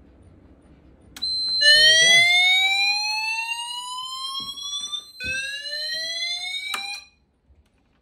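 Pertronic F1 fire alarm panel in alarm: its evacuation speaker sounds a slow rising sweep tone, twice, the second sweep cut off suddenly, over a steady high beep from the panel's internal buzzer that starts just before. The conventional smoke detector has gone off a second time under alarm verification, putting the panel into alarm.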